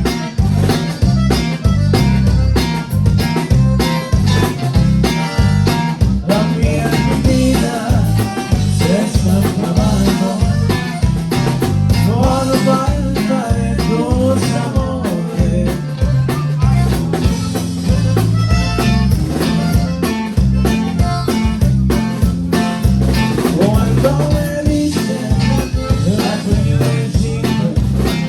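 Conjunto band playing live: accordion lead over guitar, bass and drums with a steady beat.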